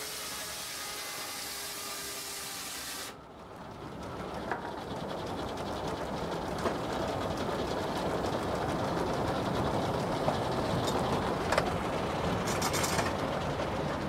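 Old sawmill machinery working a log on the carriage: steady mechanical running that breaks off suddenly about three seconds in, then a dense rattling clatter that builds, with occasional sharp knocks.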